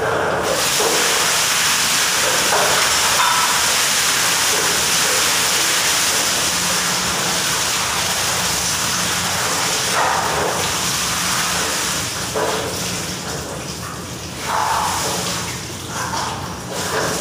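Water gushing out of the open element port of an electric water-heater tank that is still full, a loud steady rush that starts suddenly and splashes over the worker. After about twelve seconds it eases into uneven surges and splashing.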